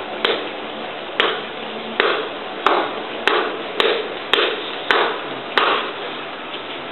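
A series of about nine sharp percussive strikes, speeding up from about one a second to nearly two a second.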